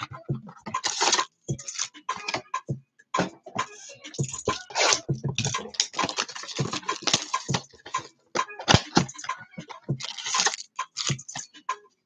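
Trading-card packaging being handled and torn open by hand: irregular crinkling, rustling and scraping of cardboard and wrappers, in quick short bursts.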